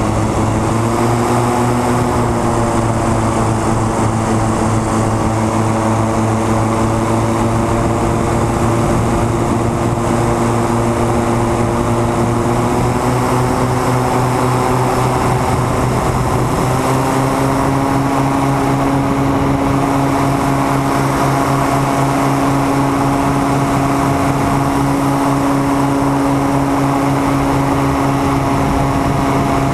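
Propeller aircraft engine droning steadily in flight, heard from on board. Its pitch creeps up over the first half and steps higher about halfway through.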